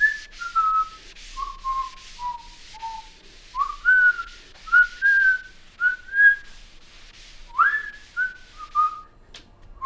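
A person whistling a slow tune in three phrases, each opening with an upward swoop and then stepping down in pitch, with the breath audible.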